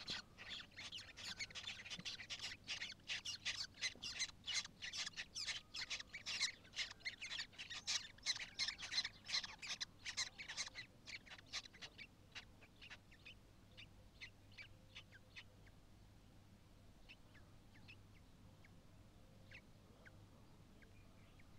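Common kestrel nestlings giving rapid, high-pitched peeping calls as the female settles over them to brood. The calls are dense and overlapping for about the first half, then thin out and fade to a few isolated peeps near the end as the chicks are covered.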